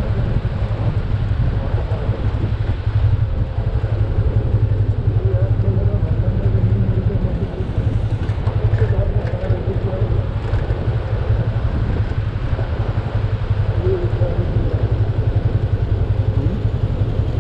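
Motorcycle running steadily along a road, its engine and road noise heard as a constant low drone.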